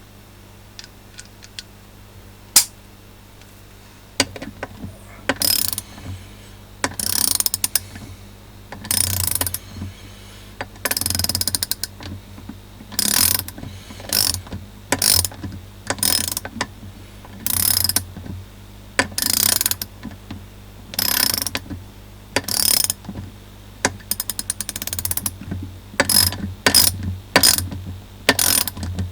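KTC Nepros NBRM3 3/8-inch-drive, 72-gear round-head ratchet handle. A few single clicks come first, one of them sharp, then from about four seconds in it ratchets in repeated short bursts of fast, fine clicking.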